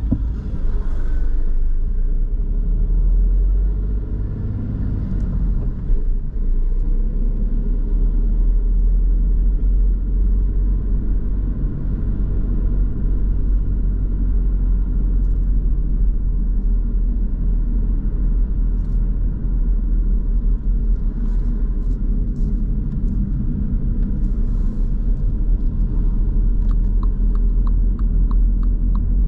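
Steady low rumble of a car driving on town streets, heard from inside the cabin. Near the end, as it reaches a roundabout, a regular ticking starts: the turn signal.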